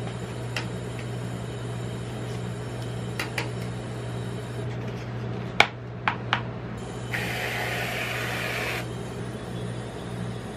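A steady low hum from the rolled-ice-cream cold plate machine. Over it come a few sharp clicks of tongs against the paper cup and plate, the loudest about halfway through. Then, near the end, a hiss of just under two seconds from whipped cream sprayed out of an aerosol can.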